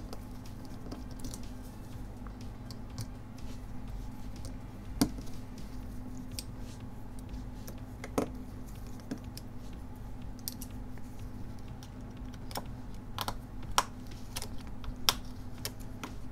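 Small, sharp irregular clicks and ticks of a precision screwdriver working the tiny screws and metal parts of an iPhone 7 being taken apart, a few louder clicks among them. A steady low hum runs underneath.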